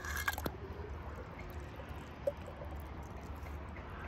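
Small die-cast toy bus pushed over a stone pool edge with a few light clicks, then a single short plop as it drops into the pool water a little past two seconds in, over a low steady hum.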